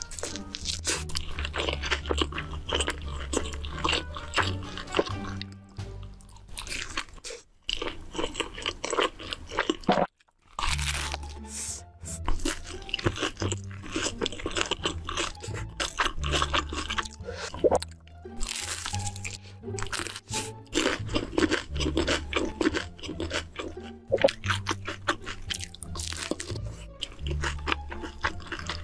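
Close-miked crunching and chewing of crunchy fast food, including a hard-shell taco, in irregular loud crunches throughout. Background music with a steady bass line runs underneath, and there is a short break to near silence about ten seconds in.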